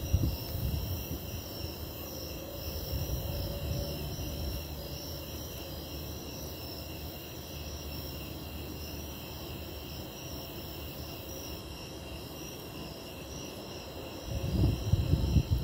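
A chorus of snowy tree crickets chirping steadily in a continuous pulsing trill, with a low rumbling underneath that swells in irregular bursts near the end.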